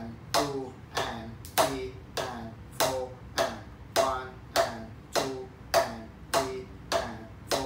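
Drumsticks striking a rubber drum practice pad in a slow, even rhythm, about one and a half to two strokes a second, each with a short ring. The strokes alternate louder and softer, played as steady eighth notes for counting practice.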